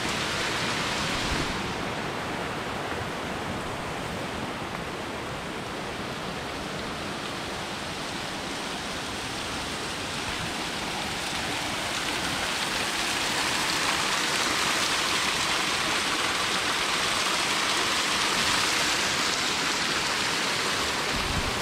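Small waterfall spilling down a limestone bluff and splashing onto the rocks below: a steady rush of falling water that grows louder about halfway through.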